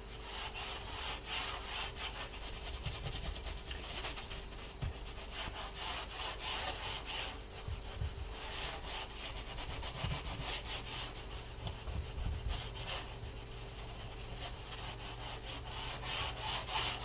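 Paper towel rubbing across a painted board in repeated, irregular wiping strokes over wet acrylic paint.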